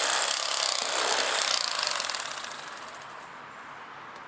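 Cordless Bubba Blade electric fillet knife buzzing as its reciprocating blades cut through catfish fillet, then fading away about two to three seconds in as it winds down.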